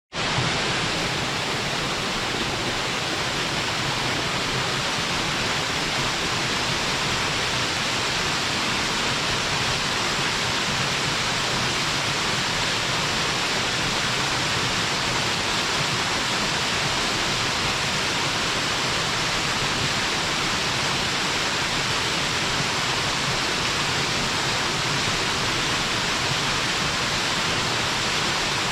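Waterfall: water falling steadily into a mountain stream gorge, a constant dense rushing noise with no change in level.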